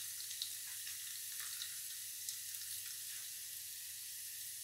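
Fenugreek and cumin seeds sizzling in hot oil in an aluminium pressure cooker: a steady hiss with scattered small crackles as the seeds pop.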